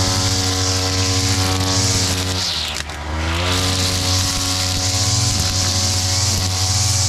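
Backpack brush cutter's engine, driving a trimmer head through a flexible shaft, running at high revs while cutting grass. About two and a half seconds in, the revs drop briefly and then climb back to full speed.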